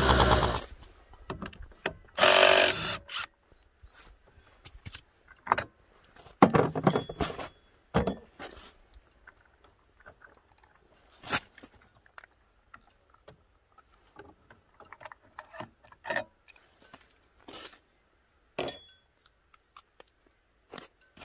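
A Honda Dio's 50 cc two-stroke scooter engine running with its belt drive exposed, cutting off just after the start. Then scattered clicks and knocks follow as the CVT drive belt and variator are handled by hand, with louder clatters about two seconds and six and a half seconds in.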